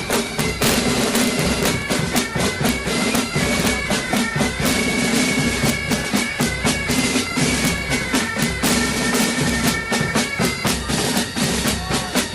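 Military pipe band playing: bagpipes hold a steady drone and melody over a brisk, regular beat of snare and bass drums.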